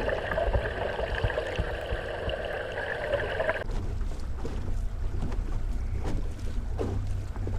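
Outboard motor trolling at low speed, heard underwater near the propeller as a steady whine; about three and a half seconds in it cuts suddenly to the motor's low hum heard from the boat, with wind on the microphone.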